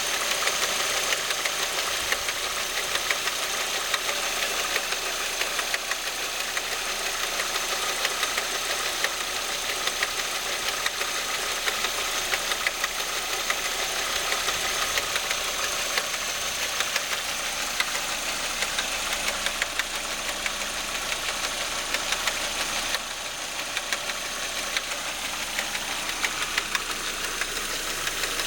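Audi A4 1.8-litre engine running steadily at idle with a rapid, continuous ticking rattle from the camshaft chain drive, the sign of worn chain sprockets.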